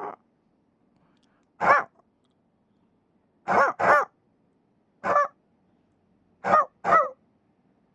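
Puppies giving short yelps, about seven in all, some coming in quick pairs, with silence between them.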